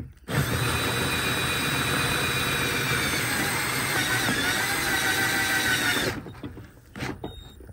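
Black+Decker cordless drill spinning a 2 1/4-inch hole saw as it chews through the plastic wall of a trash can, a steady whine for about six seconds that then stops suddenly. The drill's battery is low and the saw struggles to cut through.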